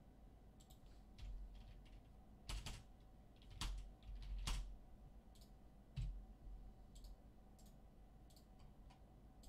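Irregular clicks and taps of a computer keyboard and mouse, faint, with a few sharper clicks in the middle.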